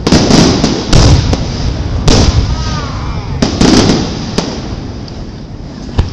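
Aerial firework shells bursting: a string of loud booms about a second apart over the first four seconds, with crackle between, then quieter near the end.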